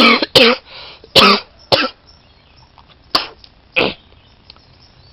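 A man's phlegmy smoker's cough: about six hacking coughs, four in quick succession and then two more after a short pause.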